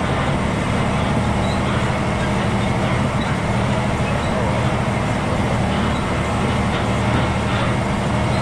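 Heavy truck driving at a steady pace: the diesel engine's even low drone over road and tyre noise.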